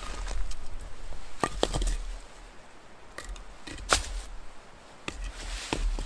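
Rocks being lifted and set down around a cold campfire pit full of ash: a handful of sharp knocks of stone on stone, the loudest about four seconds in, with crunching and scraping of ash and grit between them.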